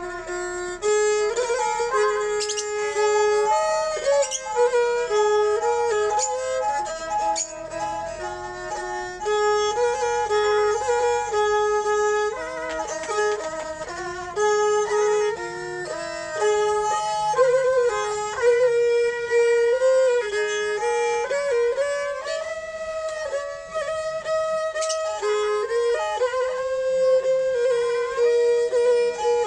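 Thai bowed fiddles (saw) playing a mahori melody together in the old kantrum style. Two sustained melodic lines step between notes side by side, with a few sharp taps here and there.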